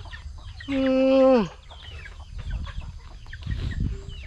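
A man's loud, drawn-out yawn about a second in, held on one pitch and then falling off, over chickens clucking around him.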